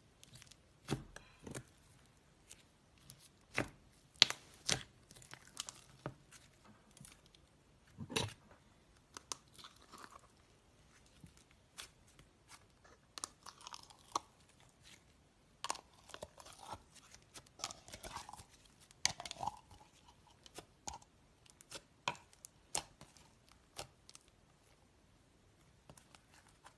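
Butter slime made with Model Magic and small coloured balls being squeezed and stretched by hand: irregular sticky clicks and crackles, with a few soft squelches.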